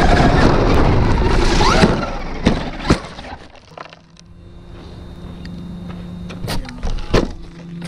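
Traxxas Rustler 4x4 RC truck's electric drivetrain and tyres rushing at speed over dry leaves and grass, cutting out about two seconds in. A few sharp knocks follow as the truck tumbles, then a steady low hum with two more knocks near the end.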